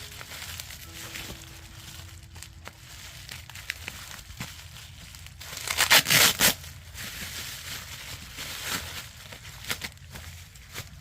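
Packaging crinkling, crumpling and tearing as a wrapped cricket bat is unwrapped, with the loudest tearing burst about six seconds in.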